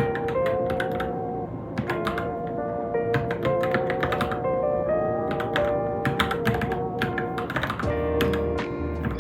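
Keystrokes on a Varmilo Minilo mechanical keyboard, a quick, irregular run of clicks from steady typing, over background music with a held, wavering melody.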